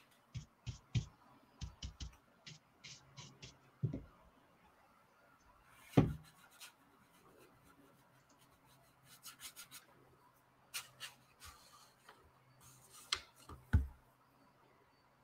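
Ink brush scratching and dabbing on paper: a run of short, faint scrapes and taps, with a sharper knock about six seconds in.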